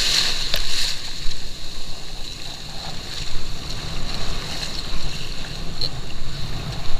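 Strong wind buffeting the microphone over the wash of sea waves, with a thin steady high whine that is loudest in the first second.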